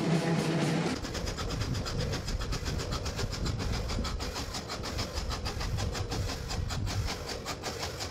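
A 1929 steam lorry running under steam, its engine exhaust chuffing in rapid, even beats over a low rumble as it drives along. For about the first second it is heard from inside the cab, with a steadier hum, before the beats take over.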